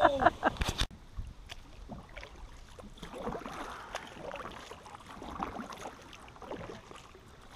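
Faint, irregular water and handling sounds around a small paddle boat on calm water, after a voice trails off with a sharp click in the first second.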